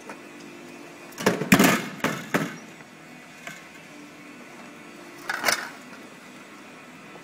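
Aerosol can crusher at work: a loud run of crunching and clanking about a second in, lasting about a second, as the ram crushes a spray can, then a shorter clank about five and a half seconds in as the cans move on, over a faint steady hum from the machine.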